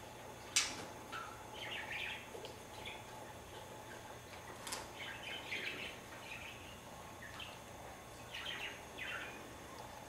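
A kitten's claws scrabbling and skittering on a hardwood floor and rug in short scratchy bursts. Two sharp knocks cut through, the louder one about half a second in and another a little before the middle.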